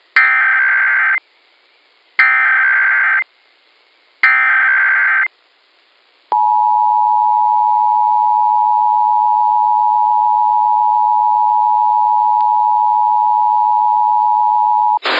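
Emergency Alert System alert opening: three short bursts of the warbling, screeching SAME digital header, each about a second long with a second's gap between them. Then the steady two-tone EAS attention signal comes in about six seconds in and holds for about nine seconds. The sequence marks the start of a national EAS test.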